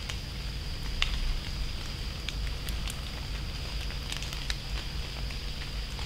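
Acorns dropping from oaks, ticking and pattering irregularly on leaves and the leaf litter like scattered rain, with one sharper tick about a second in.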